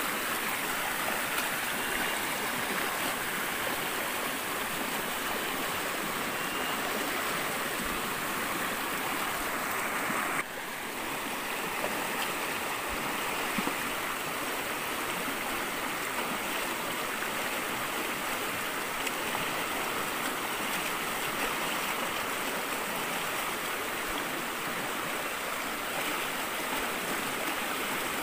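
A swollen, muddy forest river in flood, rushing steadily over rocks, with a brief dip in level about ten seconds in.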